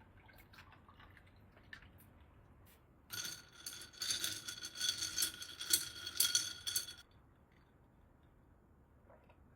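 A small electric kitchen appliance motor whirs and rattles for about four seconds, starting about three seconds in and cutting off suddenly, with light clicks and clinks before it.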